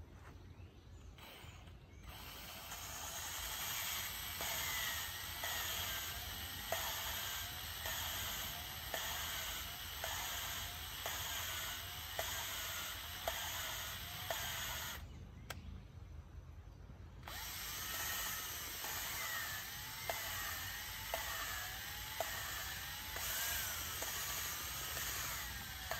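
Cordless drill spinning a valve against its seat to lap it in on the Mitsubishi Satoh S370 tractor's cylinder head: a whirring grind with a regular tick a little under a second apart and a pitch that wavers up and down. It stops for about two seconds partway through, then starts again. This is the sound that tells by ear when the valve seat is lapped about right.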